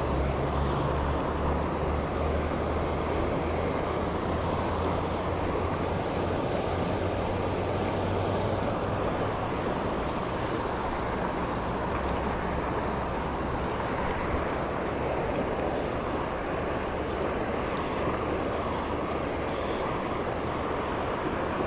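River water rushing steadily. Under it, a low steady hum fades out about nine seconds in.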